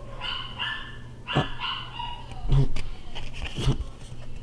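A pet dog whining in high, drawn-out notes over the first couple of seconds, followed by a few short sharp sounds.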